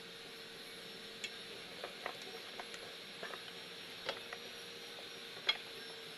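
Scattered light clicks and taps at irregular spacing, the sharpest about five and a half seconds in, over a faint steady hum and hiss.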